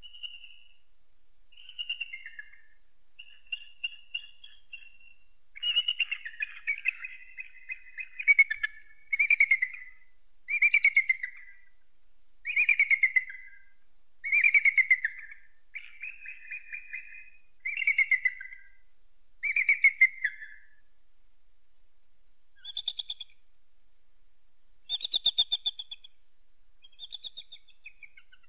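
Bald eagle calling: a series of high-pitched, rapidly pulsing whistled calls, about one every two seconds, loudest through the middle, with a short pause and a few weaker calls near the end.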